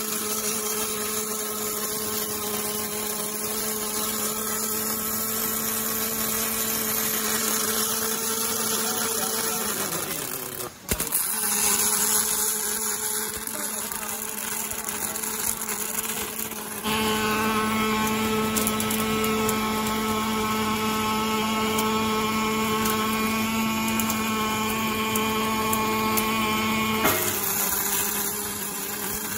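Arc welding on a pulley circular-seam welding machine: the torch arc hisses and crackles steadily as it welds the inner circular seam of a rotating steel pulley drum, over a steady machine hum. The sound drops out briefly about a third of the way in, and the hum is louder from a little past halfway until near the end.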